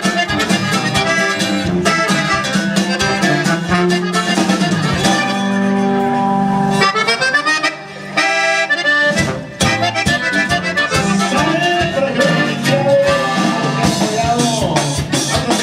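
Live accordion-led Mexican regional band music, with a rhythmic string and percussion backing. The playing thins out briefly about eight seconds in.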